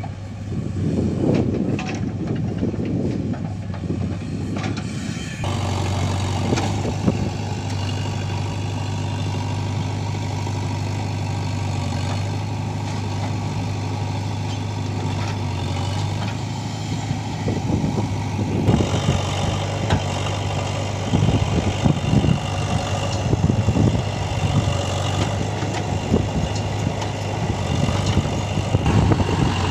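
Diesel engines of a JCB backhoe loader and a tractor running steadily while the backhoe digs and loads soil. The engine note changes a few times, and in the last third there are loud, uneven pulses as the machine works.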